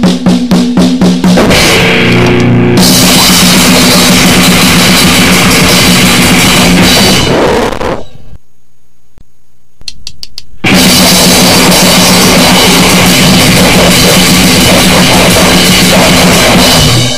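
Very loud, distorted noisecore/grindcore music: a burst of rapid separate drum hits, then a dense wall of distorted guitar and pounding drums that stops abruptly about eight seconds in. After a short pause with a faint hum and a few clicks, another track starts at about ten and a half seconds with the same dense wall of noise and drums.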